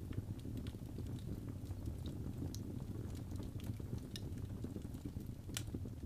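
Wood fire burning in a fireplace: scattered crackles and pops over a steady low rumble, with the loudest pop near the end.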